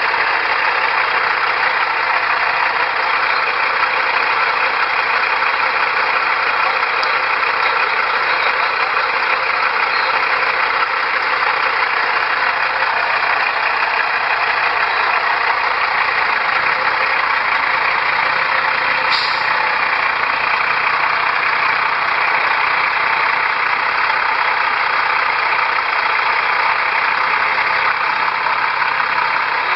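Peterbilt truck's diesel engine idling steadily, with a short high hiss about two-thirds of the way in.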